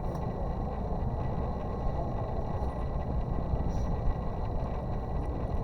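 Steady low background rumble, with a few faint light ticks on top.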